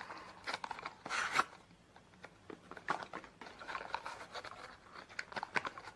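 A small cardboard box being opened by hand: short scraping and rustling sounds as the tuck flap is pulled out, with a few light clicks and taps.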